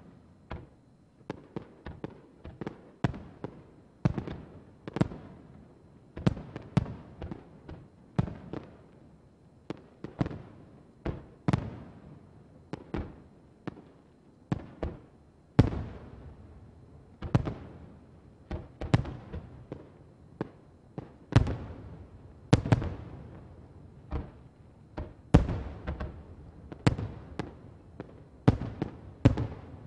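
Aerial firework shells bursting one after another, a steady string of sharp booms about one to two a second, each trailing off, with the loudest bursts in the second half.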